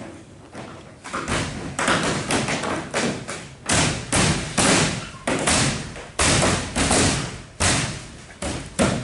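Rapid repeated thuds, about two to three a second, starting about a second in, as the rain guard strip is knocked and snapped onto the edge flange of a hollow fiberglass hunting blind.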